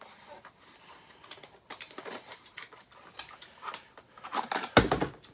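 Scissors snipping and cardboard toy packaging being handled: a string of small clicks and rustles, with a louder burst of handling noise near the end.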